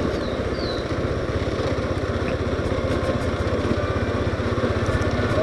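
Motorcycle engine running steadily as the bike is ridden at low speed over a cobblestone street, heard from the rider's seat.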